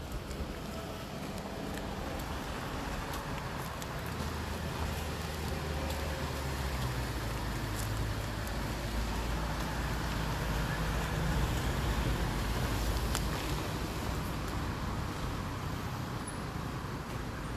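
Steady road-traffic rumble that swells through the middle and eases near the end, with a couple of faint clicks.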